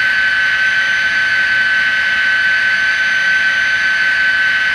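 Sound decoder of an Intermountain N scale SD40-2 playing its diesel engine sound at idle through the model's small speaker: a steady high whine over a hiss.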